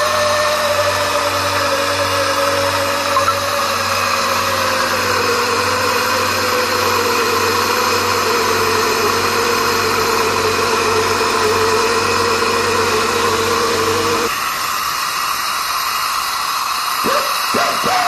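Fiberglass chopping machine running with a steady motor whine that sinks slightly in pitch. About fourteen seconds in the low hum and whine drop out, leaving a rushing noise, and a few quick swoops in pitch come just before the end.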